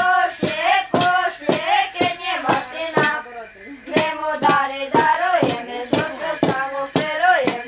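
A group of boys singing a Slovak Christmas shepherds' carol together, with a steady knock in time about twice a second from their wooden staffs struck on the floor.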